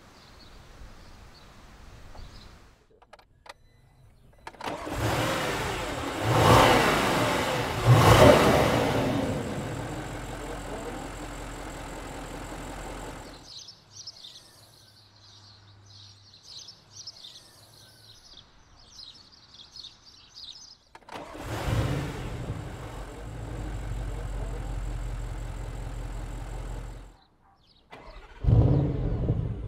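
Audi S7's 4.0-litre twin-turbo V8 starting with a rev flare that peaks twice, then idling until it cuts off abruptly. After a quieter stretch with high chirping, the engine starts and flares again, idles, cuts off, and is revved sharply near the end.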